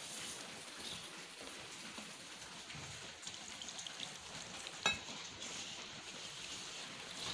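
A hand working water into maida flour in a steel bowl, making dough: a soft, steady rustling and scraping of flour against the metal. A single sharp metallic click comes about five seconds in.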